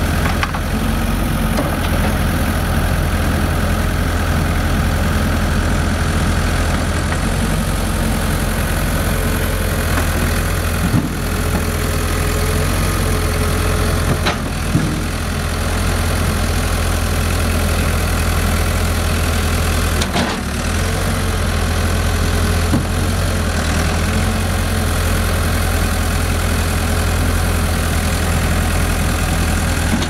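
New Holland backhoe loader's diesel engine running steadily at low revs while the machine moves slowly over gravel, with a few brief knocks.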